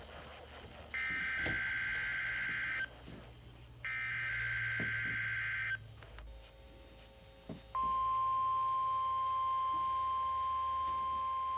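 NOAA Weather Radio Required Weekly Test on a weather radio receiver: the last two of three SAME digital header bursts, each a harsh warbling data screech about two seconds long, a second apart. About two seconds later the steady 1050 Hz warning alarm tone starts and holds as one unbroken pitch.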